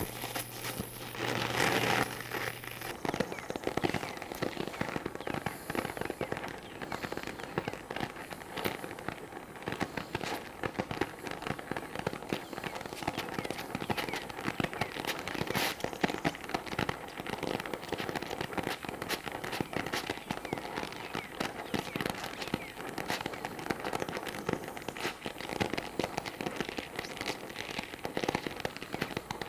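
Gas brazing torch flame playing steadily on cast iron, with a dense crackling throughout, while the part is preheated toward brazing temperature.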